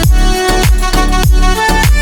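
Background music with a steady electronic dance beat: a kick drum about three times a second under sustained melodic notes.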